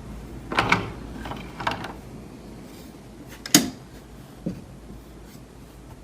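Door handle and latch rattling and clicking: two short clattering rattles, then one sharp, loud click a little past the middle and a soft knock later on.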